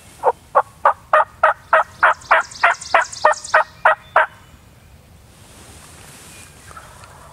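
A run of about fourteen loud turkey yelps, evenly spaced at roughly three a second, stopping abruptly about four seconds in.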